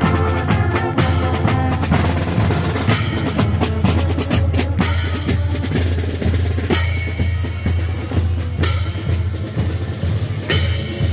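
Marching band in a parade: the brass finishes a phrase in the first second or so, then the drum line plays a cadence on snare and bass drums.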